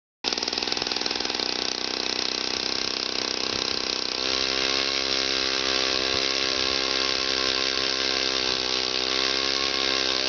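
Gas-powered two-stroke ice auger running as it bores into pond ice. Its engine note shifts and gets a little louder about four seconds in.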